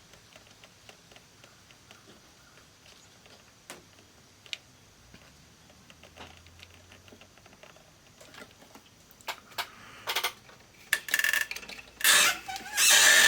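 Scattered faint clicks and light clatter of small parts and tools being handled. Near the end come several louder rustling, scraping bursts.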